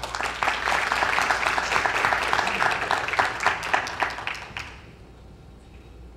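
Applause from a small group of people: dense clapping for about five seconds that then dies away.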